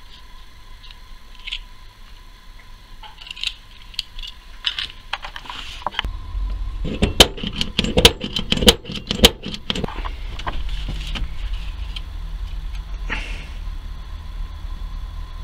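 Small metal clicks and ticks as a diecast model car's metal base is handled and worked with a hand pin vise, with a run of loud sharp clicks in the middle. From about ten seconds in, a cordless drill runs steadily, drilling into the post of the model's base.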